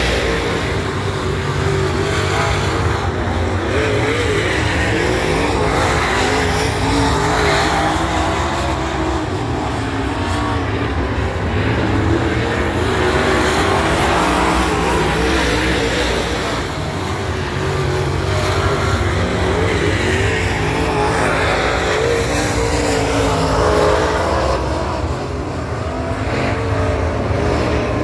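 Dirt super late model race cars' V8 engines running hard as several cars circle the dirt oval, the pitch rising and falling as they back off into the turns and power out again.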